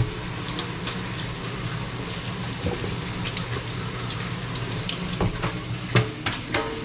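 Bacon frying in a pan over gentle heat: a steady sizzle with scattered small crackles and pops, over a steady low hum. One sharper knock comes about six seconds in.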